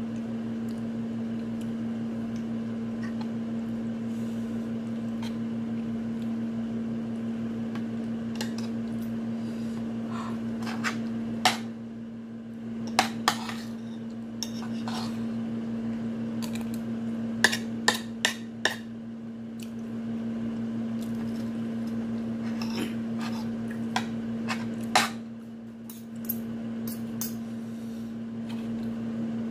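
Spoon clinking and scraping against a plate in scattered short clicks, a few in quick clusters, over a steady hum.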